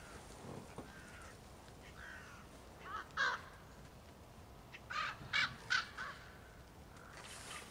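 Common ravens calling: one call about three seconds in, then a quick run of three or four calls about five seconds in.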